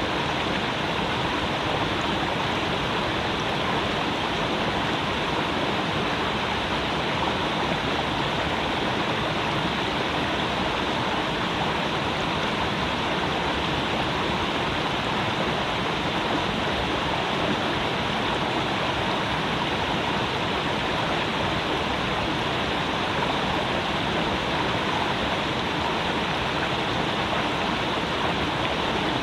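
A creek's water running and splashing steadily, a constant rush of flowing water with no breaks.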